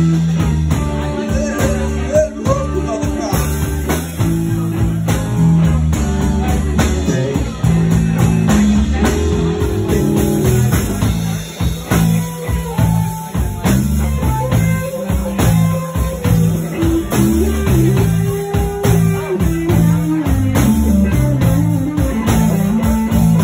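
Live blues played on an amplified electric guitar, an instrumental stretch with notes moving steadily in the low and middle register.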